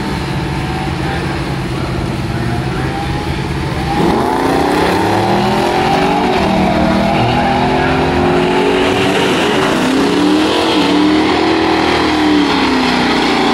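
Drag racing cars' engines idling at the start line, then launching at about four seconds: the engines rev hard, with the pitch climbing and dropping back several times as they shift through the gears.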